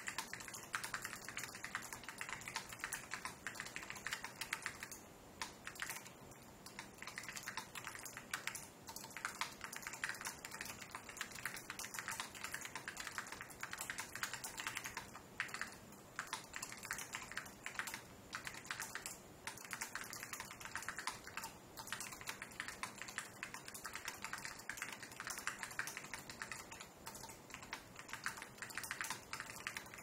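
Continuous typing on a custom mechanical keyboard with modded Orange Alps switches fitted with SKCL yellow stems, PBT keycaps, a brass plate and an aluminium case: a dense run of key clicks with a few short pauses.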